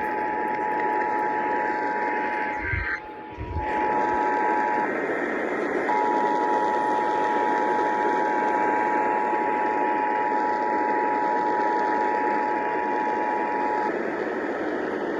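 Emergency Alert System two-tone attention signal (853 and 960 Hz sounded together) received over AM broadcast radio: a steady two-note tone over constant static hiss. It breaks off for about a second about five seconds in, resumes, and stops about a second before the end, leaving only the hiss.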